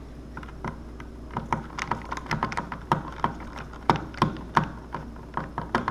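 Screwdriver tightening the screws of a dimmer switch into its wall box: a run of irregular small clicks and taps, several a second.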